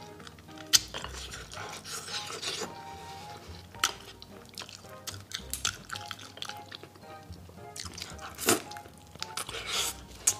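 Wet smacking and sharp mouth clicks from chewing and sucking on saucy braised chicken feet, a few sharp clicks standing out, over soft background music.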